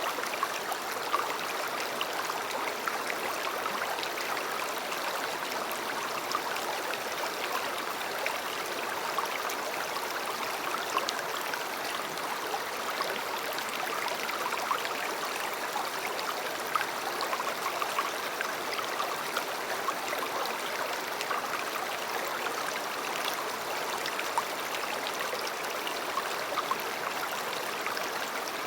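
A shallow river flowing over stones, a steady rush of water with many small splashes and trickles.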